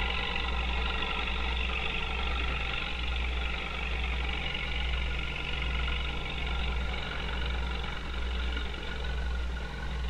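Farm tractor engine running steadily while pulling a hay baler and bale wagon, with a low, regular throb.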